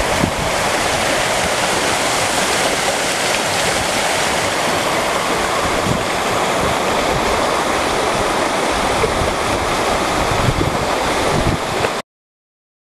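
Water running and splashing in a partly frozen outdoor fountain, a steady rushing noise that cuts off suddenly near the end.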